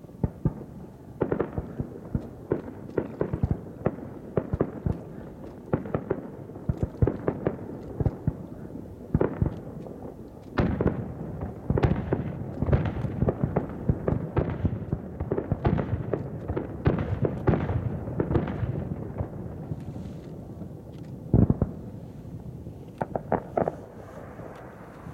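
Aerial firework shells bursting in a rapid, irregular series of booms, thickest in the middle, with one especially loud bang near the end.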